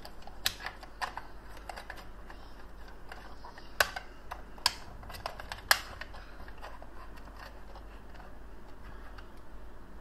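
Hard plastic clicks and light handling rattles as the battery compartment cover of a battery-powered plastic toy cow is fitted and pressed shut, with about five sharper snaps in the first six seconds.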